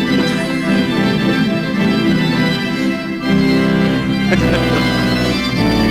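Theater organ playing sustained full chords; about halfway through, the chord changes and a deep bass note comes in underneath.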